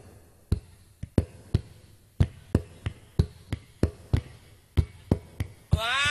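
Drum hits from a live band, single sharp strokes in an uneven rhythm of two or three a second. Near the end the band comes in with a melody of gliding notes.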